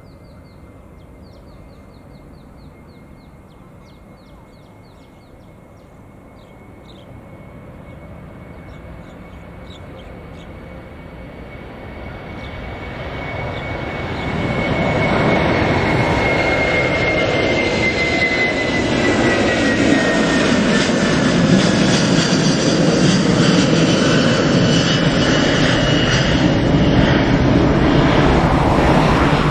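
Airbus A330-200's twin Pratt & Whitney PW4000 turbofans at takeoff power: the jet roar builds steadily as the airliner rolls and lifts off, turns loud about fifteen seconds in and stays loud as it climbs past overhead. A high engine whine runs through it and drops slightly in pitch as the aircraft passes.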